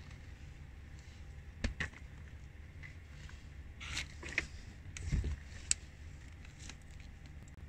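Sneakers stepping on a tile floor: a couple of light taps of rubber soles, then a cluster of scuffs and taps and one heavier thud of a foot coming down, over a low steady hum.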